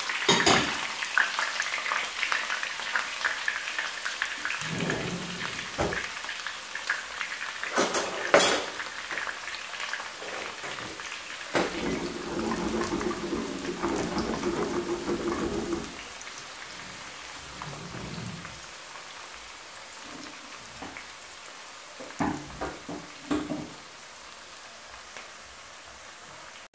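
Onions and green onions frying in hot palm oil in a nonstick frying pan: a steady crackling sizzle with a few sharp knocks, getting quieter after about sixteen seconds.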